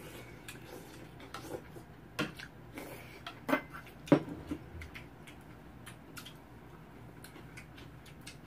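Metal spoons and chopsticks clicking against bowls while two people eat. Irregular light clicks, with a few louder knocks about two to four seconds in.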